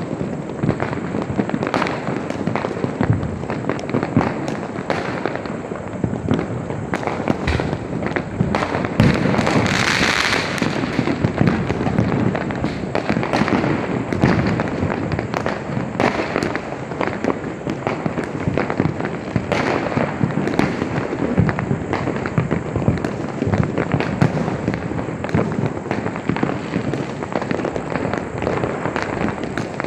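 Fireworks and firecrackers going off in a dense, continuous barrage of overlapping bangs and crackles. About ten seconds in there is a louder hissing burst.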